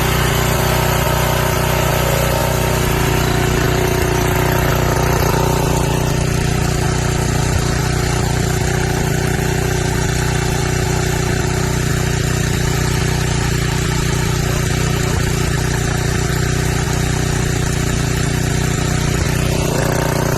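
Briggs & Stratton 5250-watt portable generator's engine running steadily at an even speed on its freshly cleaned carburetor.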